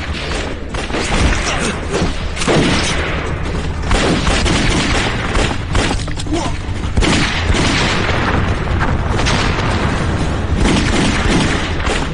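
Gun battle: pistol and rifle shots fired thick and fast, overlapping with heavy booms, with no break.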